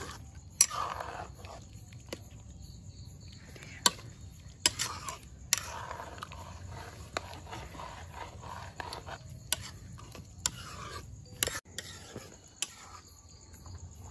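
Spatula stirring a thick stew in a steel wok, with sharp clinks of the spatula against the pan every second or so.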